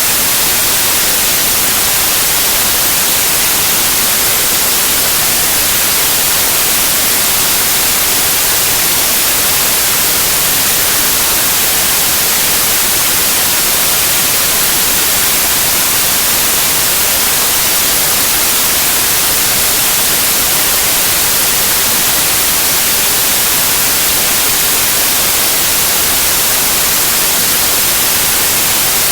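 Steady white noise: an even, unbroken hiss, brightest in the high end and unchanging in level throughout.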